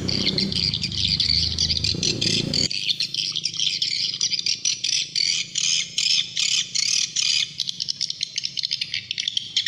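Edible-nest swiftlet call recording playing as a lure to draw swiftlets to a swiftlet house: a continuous, dense twittering of rapid high chirps.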